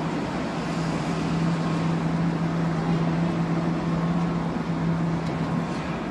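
Film shrink-wrapping machine's heat tunnel and roller conveyor running: a steady blower rush with a low hum that stops shortly before the end.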